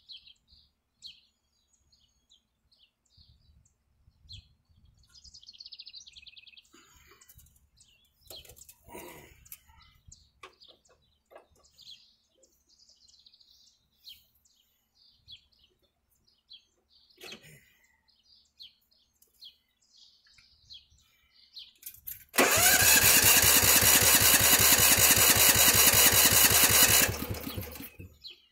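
A riding lawn mower's Honda engine is cranked over by its electric starter for about five seconds, a fast even churning that stops without the engine catching. This is the sign of an engine that is getting no spark.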